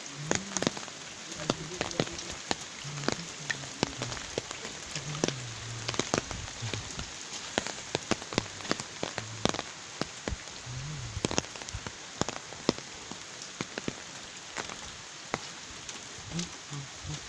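Rain falling steadily, with loud, irregular taps of large drops landing close by.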